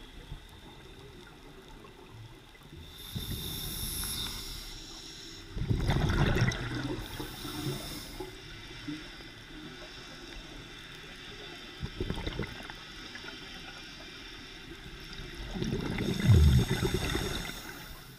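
Scuba diver breathing through a regulator underwater: a hiss of inhaled air through the demand valve, then rushes of exhaled bubbles. The loudest bubble bursts come about six seconds in and near the end.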